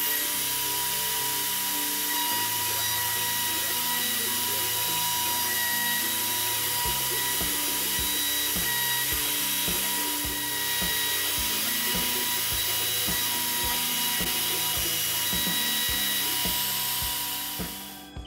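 Kress router spindle on a Stepcraft D600 CNC running with a steady whine and hiss as a 60-degree V-bit engraves plywood. Background music with a steady beat runs under it, the beat coming in about a third of the way through. The machine noise falls away near the end.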